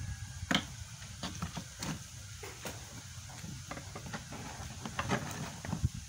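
Faint, irregular clicks and light knocks over a low background rumble.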